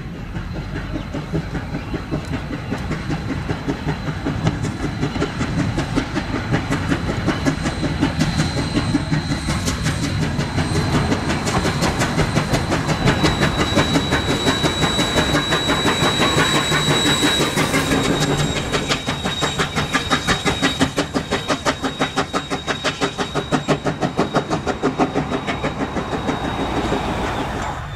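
Queensland Rail C17 class steam locomotive 974 working along the line, its exhaust chuffing in a steady, even rhythm of beats. A thin high whine runs through the middle stretch.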